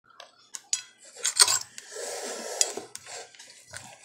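Cutlery clinking and scraping on a plate as pancakes are cut and eaten, with several sharp clinks.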